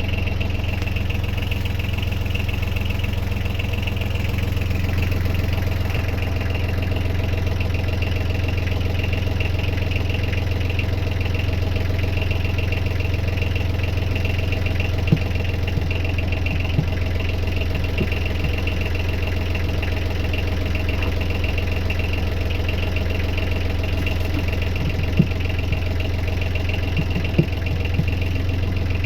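Small boat engine idling steadily, ticking over smoothly, with a few brief knocks in the second half.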